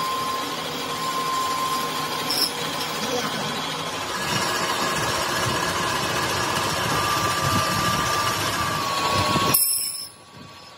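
Metal lathe cutting a steel workpiece: the tool shaving the turning part gives a steady grinding noise with a thin high whine. The cutting noise drops away suddenly near the end.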